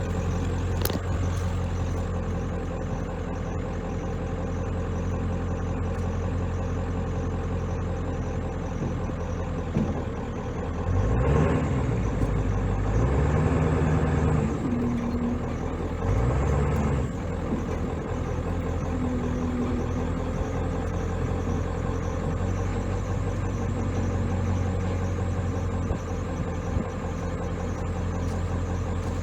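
Vehicle engine running steadily, its speed rising and falling a few times about halfway through.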